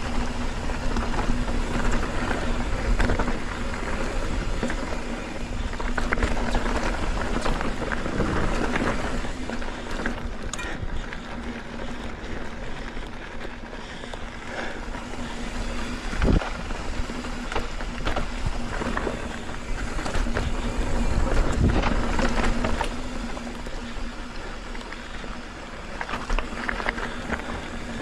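Mountain bike riding a dirt trail: a steady rush of tyre and wind noise on the microphone, with scattered rattles and knocks from the bike and a steady hum.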